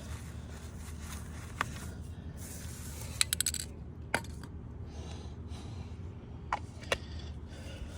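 Scattered sharp clicks and clinks of small hard objects being handled, with a quick run of four about three seconds in, over a steady low hum.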